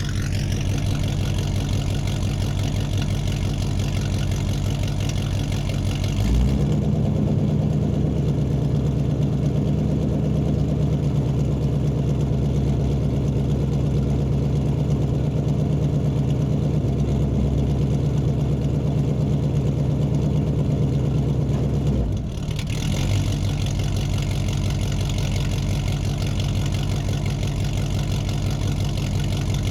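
Muscle car engine running in a large room. It idles, then about six seconds in it is held at a higher steady speed for about fifteen seconds before dropping back to idle.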